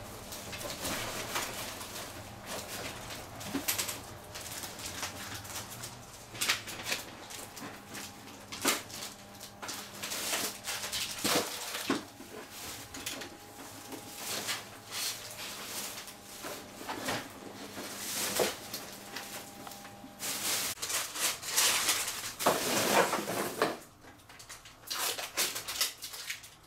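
Irregular knocks, clicks and clatter from air conditioner installation work as tools and parts are handled, over a faint steady hum that stops about three-quarters of the way through.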